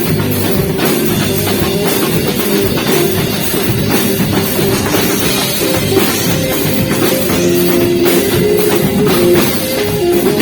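A live band playing a beiradão medley: a drum kit keeps a steady beat under a saxophone melody of held notes, with guitar in the mix.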